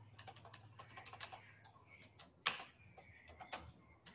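Typing on a computer keyboard: an irregular run of key clicks, with one louder keystroke about two and a half seconds in.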